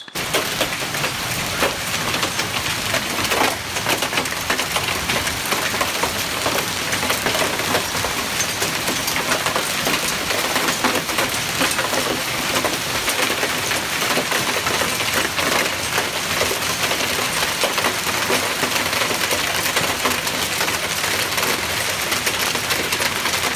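Quarter-sized hail falling hard in a storm together with rain: a dense, steady patter of countless small hits over a hiss.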